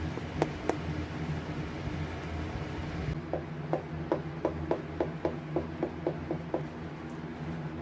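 Steel tweezers tapping lightly against a handheld device's hard case, about a dozen even taps at roughly three a second after two single clicks, over the steady hum of grow-tent fans.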